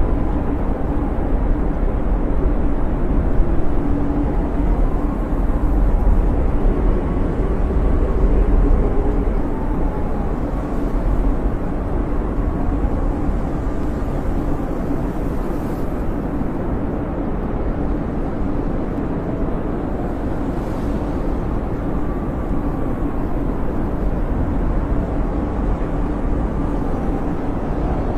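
Blizzard wind howling steadily: a deep rumble with faint whistles that rise and fall in pitch, slightly stronger in the first third.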